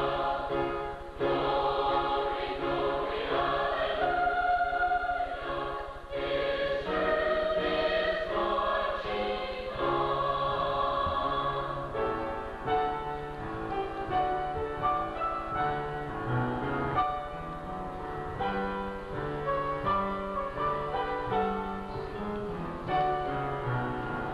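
Mixed high school choir singing sustained chords in harmony. About halfway through the voices stop and instrumental music carries on in shorter, separated notes.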